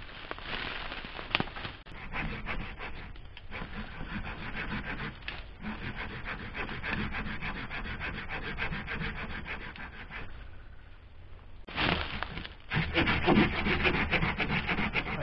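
Hand saw cutting through the base of a thin eucalyptus trunk: rapid rasping strokes that pause briefly about ten seconds in, then resume louder.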